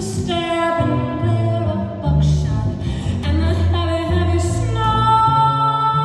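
A woman singing while playing an upright double bass, her held sung notes over low bass notes that change every second or so.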